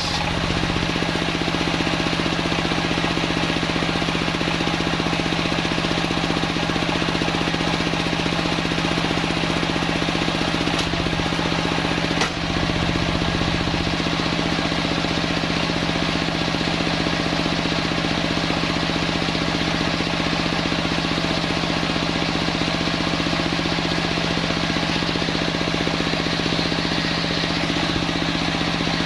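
Homemade circular sawmill running steadily with a constant machine hum, with one brief dip about twelve seconds in.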